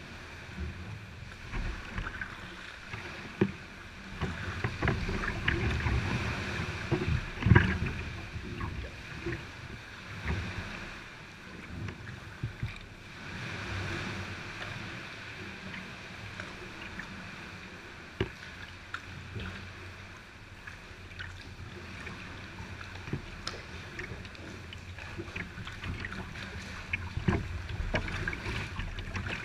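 Sea kayak being paddled through a sea cave: paddle strokes splashing and water lapping and sloshing against the hull, with scattered sharp splashes and knocks, the loudest about seven and a half seconds in.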